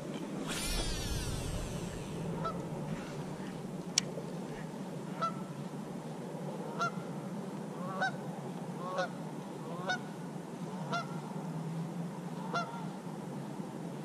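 Geese honking again and again, short calls about once a second, with a brief swish near the start.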